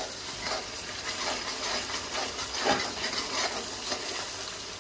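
A thick onion, garlic, tomato and spice curry base sizzling in hot oil in a pan, its added water cooked off so it is frying again. A spoon scrapes through it about three times a second as it is stirred.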